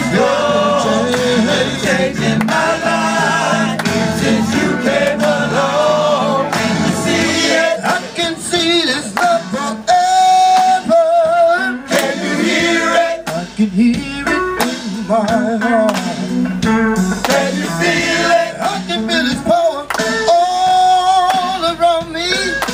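A group of men singing a gospel song together, one lead voice on a microphone, with hands clapping along.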